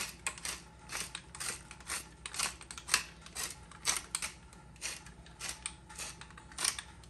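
Hand-twisted pepper mill grinding black peppercorns, a series of short gritty crunches about twice a second.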